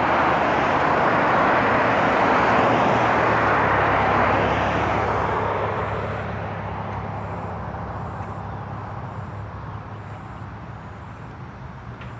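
A vehicle driving past: a broad rush of tyre and engine noise that is loud for the first few seconds and fades away by about two-thirds of the way through, leaving a steady low hum.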